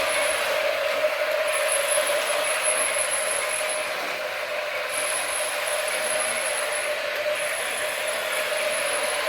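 Small electric toy motor and plastic gears whirring steadily, with a faint high whine that cuts in and out.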